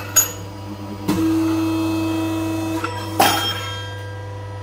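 Workshop bench sounds: a sharp metal click, then a steady pitched hum with hiss lasting nearly two seconds, then another sharp click, all over a constant low background hum.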